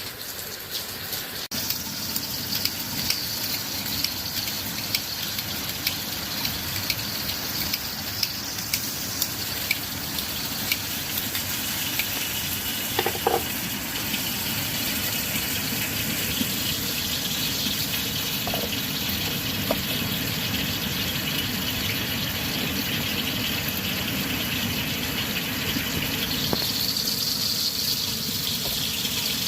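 Water running steadily, with small clicks and knocks in the first half.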